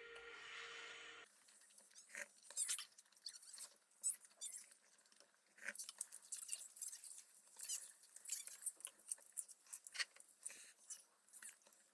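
Close-up eating sounds: chewing with many small wet clicks and crunches, in irregular bursts. A snatch of music plays in the first second.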